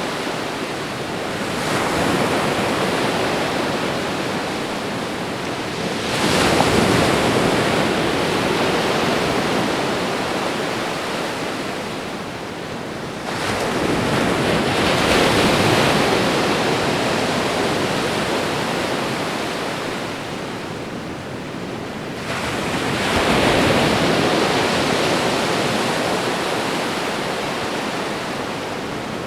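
Ocean waves washing onto a shore: a steady rush of surf that swells as each wave comes in and ebbs away, with four surges several seconds apart.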